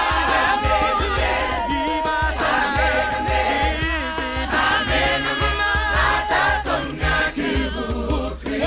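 A choir of many voices singing together in harmony.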